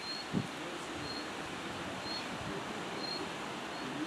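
Outdoor background hiss, with a short high chirp about once a second and a single low thump about half a second in.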